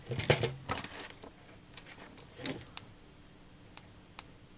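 Plastic clicks and taps from hands handling a ring light's 3D-printed clamp and power cable while testing it. There is a quick run of clicks in the first second, then about half a dozen single sharp clicks spaced out across the rest.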